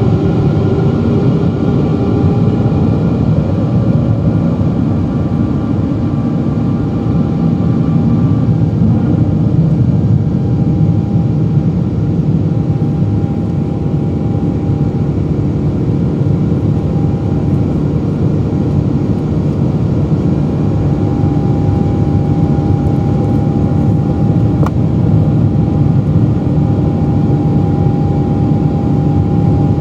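Boeing 777-200's General Electric GE90 turbofan engines heard from inside the cabin beside the wing while climbing after takeoff: a loud steady rumble with a few steady whining tones on top.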